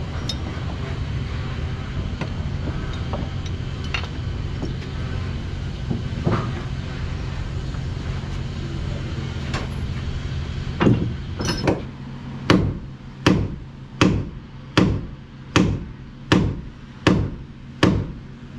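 A steady low machine hum with a few scattered knocks. About eleven seconds in, a hammer starts striking at an even pace on the wooden rail, roughly one blow every 0.8 seconds, each blow louder than the hum.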